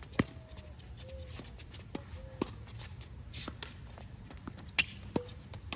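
Tennis rally: several sharp pops of a tennis ball struck by rackets and bouncing on a hard court, about a second apart, some with a brief ring of the strings.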